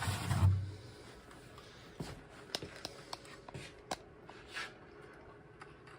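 A brief scrape, then a handful of faint clicks and light taps, from the old loudspeaker being handled after sliding it out of the wooden TV cabinet.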